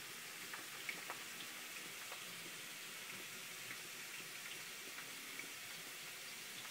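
Faint steady hiss, with a few soft clicks about a second in as hands separate the slices of a spiral-cut potato along a wooden skewer.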